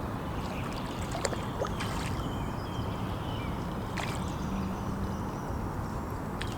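Outdoor ambience of steady low rumbling wind noise, with faint bird chirps and a few sharp clicks.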